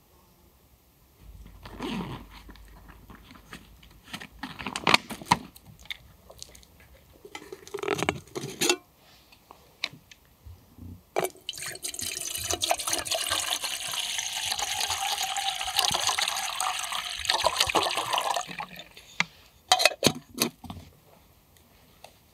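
Water poured in a steady stream into a small black metal camping kettle, splashing for about six seconds. Before it come scattered knocks and rustles of handling. A few sharp clicks follow near the end.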